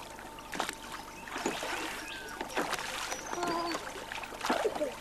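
Water slapping and splashing against a moored yacht's hull, with scattered sharp knocks and bumps.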